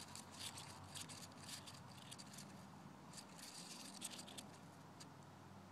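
A live luna moth pupa wriggling inside its silk cocoon, spun in a dry hickory leaf, after a gentle squeeze disturbed it. It makes a faint, dry scratching rustle of quick small ticks, which thins out about four seconds in.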